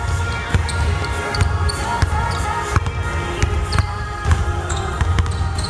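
Basketballs being dribbled on a hardwood gym floor: many quick, irregular bounces. Under them runs background music with a heavy, pulsing bass.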